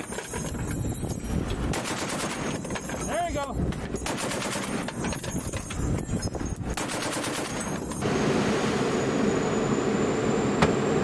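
Deck-mounted machine gun firing in several rapid bursts with short pauses. About eight seconds in it gives way to the steady hum of a fast patrol boat's engines with water rushing past the hull.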